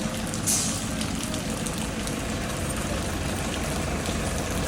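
Car engine idling steadily, with a short hiss about half a second in.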